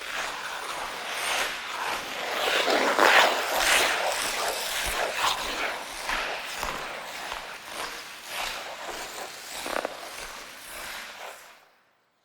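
Ice skate blades scraping and gliding across ice in a run of repeated strokes, fading out near the end.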